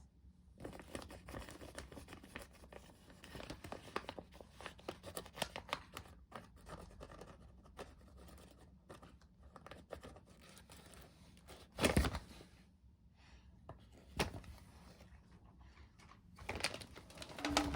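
IKEA blue woven polypropylene shopping bag rustling and crinkling in short scratchy crackles as a cat plays in it, with a louder rustle about twelve seconds in and a shorter one about two seconds later.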